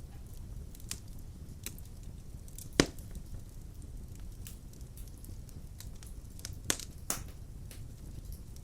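Wood fire burning in a fireplace: a steady low rumble with scattered crackles. One loud pop comes a little under three seconds in, and two more sharp pops come near the end.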